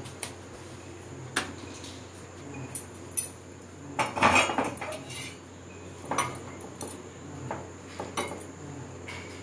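Scattered metal clinks and clatters of kitchen tongs against an iron tawa and the gas stove's grate as a phulka is turned and set on the flame. The loudest clatter comes about four seconds in.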